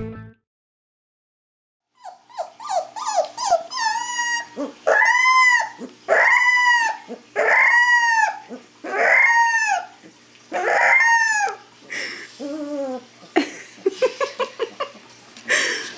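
Siberian Husky puppy howling: a few short yelping calls, then a run of about five high howls of about a second each, every one rising and then falling in pitch, fading into softer, shorter whimpers and yips near the end.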